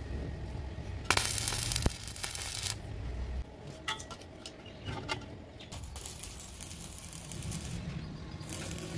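Metal clicks and clinks as a spring welding ground clamp is handled on a square steel post, with a brief loud rush of noise about a second in, ending in a sharp click.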